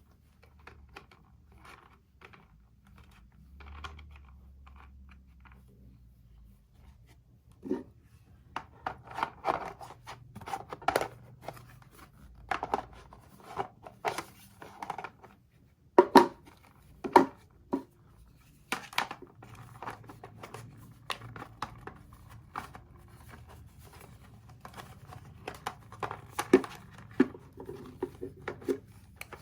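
Packaging for a plastic soap rack being opened and handled: scattered tearing, scratching and crinkling with sharp clicks and knocks. It is faint and sparse at first, then denser and louder from about eight seconds in.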